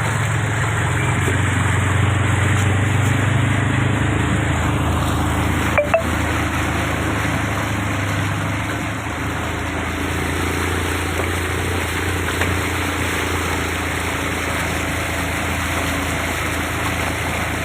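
A vehicle's engine running steadily while driving, a low even hum under a continuous wash of noise, with one short click about six seconds in.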